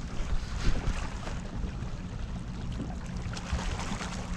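Scattered light knocks and clicks as a kayak seat that has lost a screw is handled on a plastic kayak, over a steady low rumble of wind and water.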